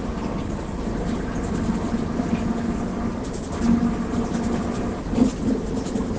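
Caio Apache Vip IV city bus underway, its engine running with the rear differential growling as a steady drone, and a couple of louder knocks and rattles past the middle.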